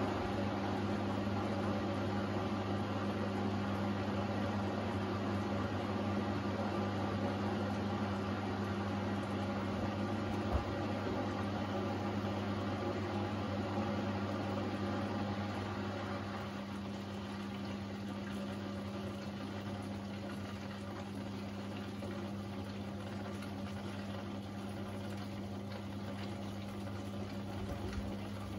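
Beko washer-dryer turning wet laundry through soapy water in its drum, water sloshing over a steady low machine hum. The sound eases off slightly about halfway through.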